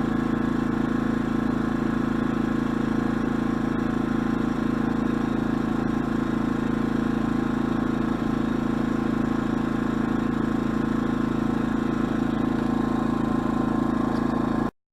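Predator 2000 watt inverter generator's single-cylinder four-stroke engine running at a steady, even speed. It cuts off abruptly near the end.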